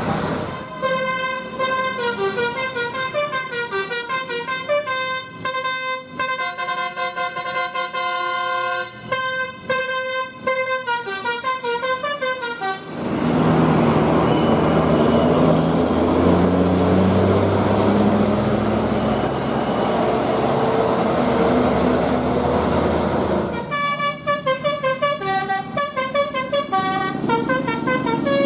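Bus basuri horn, a multi-trumpet 'telolet' horn, playing a stepping melody for about twelve seconds. Then comes a loud stretch of bus engine and road noise, and the horn tune starts again about five seconds before the end.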